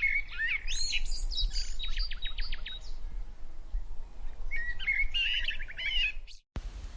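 A songbird singing two phrases of quick whistled notes, the first ending in a fast trill, over a low background rumble. Near the end the sound cuts out for a moment and a steady hiss takes over.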